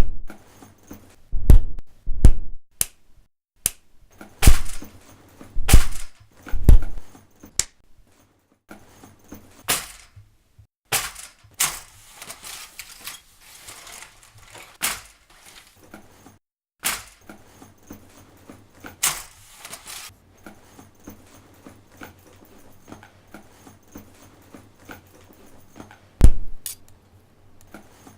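Homemade foley sound effects: a string of hard thumps and knocks, several close together at first and one more near the end, with scraping and clattering between them.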